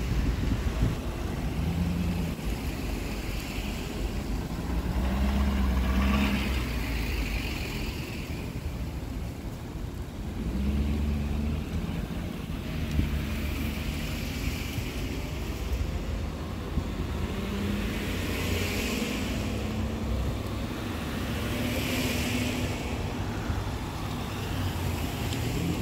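A line of cars, SUVs and trucks driving past one after another: engines running under a steady low rumble, with tyre hiss on the wet road swelling and fading as each vehicle goes by.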